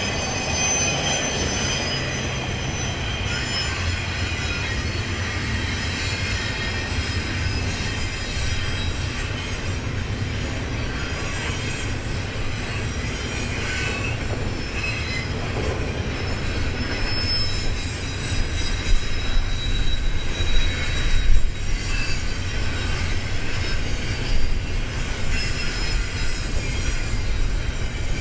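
Double-stack container train rolling through a curve: the wheels of the well cars squeal against the rail over a steady low rumble. A few louder low surges come in during the last third.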